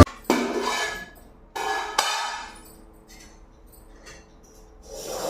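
Metal dishes and utensils clattering: two ringing knocks a little over a second apart, then a sharp click, as food is served.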